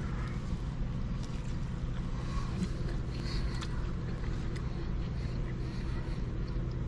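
Steady low hum of a car idling, heard from inside the cabin, with a few faint light clicks over it.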